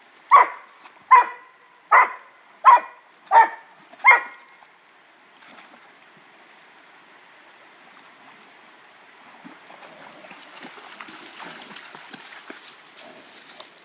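A dog barks six times in quick succession, about one bark every three-quarters of a second. The shallow creek then runs steadily, with splashing from about ten seconds in as the dog wades.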